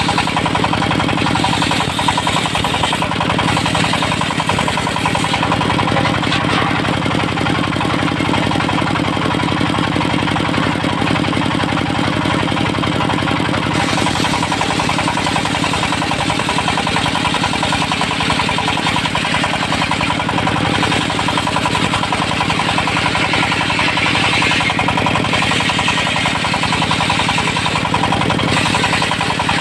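Diesel-driven circular sawmill running steadily with a rapid, even pulsing, its blade ripping teak timber into joists.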